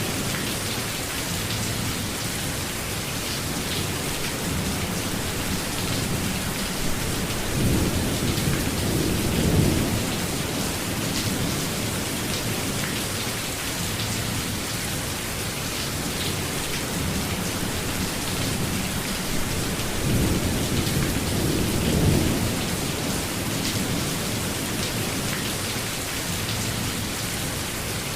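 Steady heavy rain falling in a thunderstorm, an even hiss throughout. Two low rolls of thunder swell and fade: one about seven seconds in, another about twenty seconds in.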